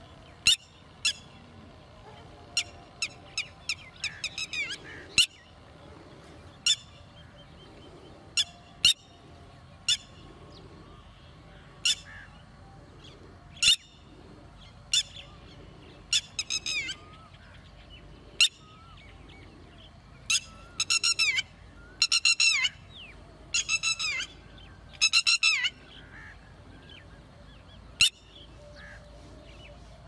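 Red-wattled lapwing calling: sharp, loud single notes scattered throughout, with several quick strings of rapidly repeated notes, most of them in the second half.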